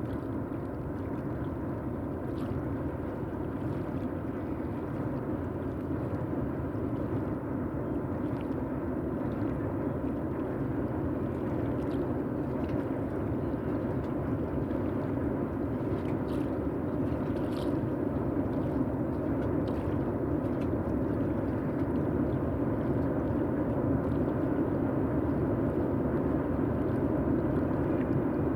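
Low, steady rumble of a train on the railway bridge, slowly growing louder, with a few faint clicks.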